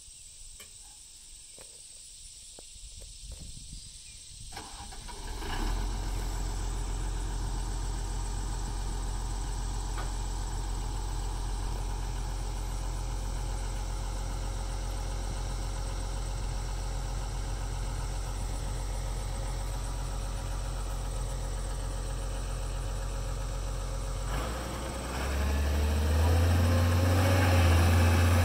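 2000 Kobelco SK250LC excavator's diesel engine starting about five seconds in, then idling steadily. Near the end it is throttled up to a higher, louder steady speed.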